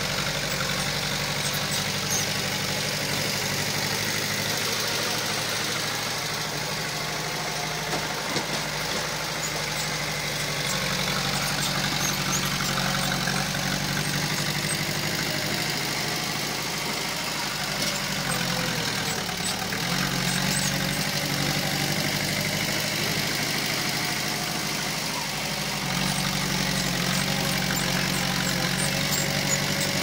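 Diesel engine of heavy construction machinery running steadily. Its pitch dips briefly about two-thirds of the way through, and it runs a little louder near the end.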